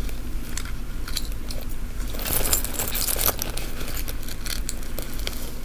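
A fabric bag being handled while a pin is worked into it: rustling, with small clicks and clinks from the metal keyrings and charms hanging on it. A louder patch of rustling comes about two seconds in and lasts about a second.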